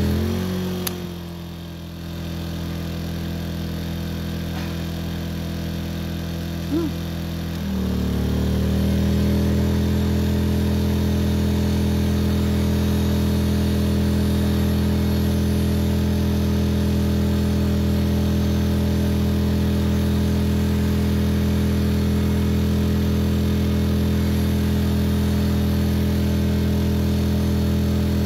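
Steady, engine-like motor hum. About a second in it slows to a lower, quieter pitch, then speeds back up about eight seconds in and runs steadily at full speed.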